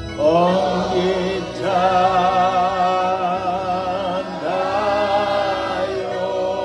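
A man's voice singing a slow Zulu hymn in long held notes with vibrato, in three phrases with short breaks between them, over a low steady note.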